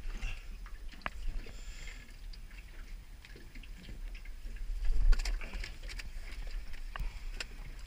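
Wind rumbling on the microphone, with scattered clicks and knocks from a caught cod and its jig being handled in an aluminium boat. The loudest knock comes about five seconds in.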